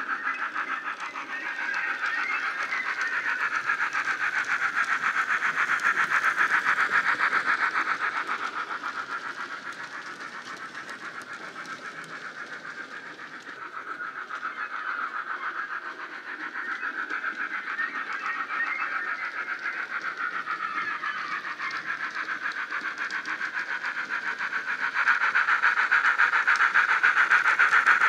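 Steam-locomotive chuffing from a Bachmann Thomas the Tank Engine model's Loksound 5 micro DCC sound decoder, played through its small onboard speaker while the model runs. The chuffs come in a quick, even beat that fades in the middle and is loudest near the end as the engine comes close.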